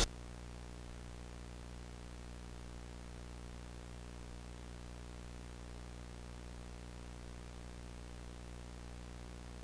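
Steady low electrical hum under an even hiss, unchanging throughout: the background noise of the recording with nothing else playing.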